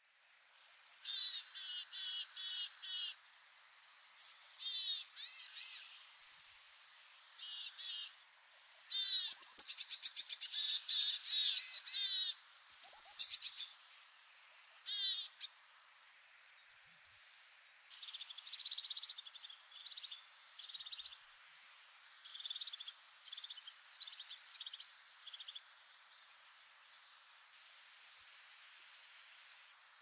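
Willow tit calls: short bouts of repeated notes, mixing harsh nasal notes with thin high notes, separated by brief pauses. The calling is densest and loudest about ten seconds in.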